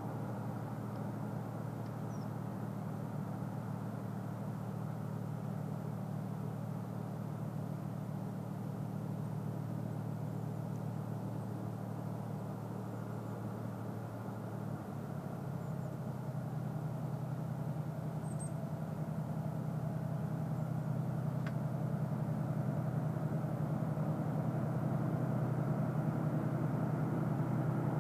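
JR Freight DF200 diesel-electric locomotive's engines working, heard from a distance with the train not yet in sight: a steady low engine hum. The engine note shifts about halfway through, then grows gradually louder as the locomotive comes nearer.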